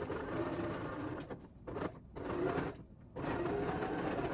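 Janome electric sewing machine stitching a seam through two layers of fleece, running in several stretches with short pauses between them.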